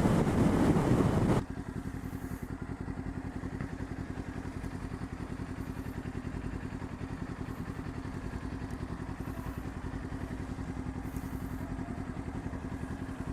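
Wind rushing over the microphone while riding, which cuts off abruptly about a second and a half in. It gives way to a motorcycle engine idling steadily with an even, fast pulse.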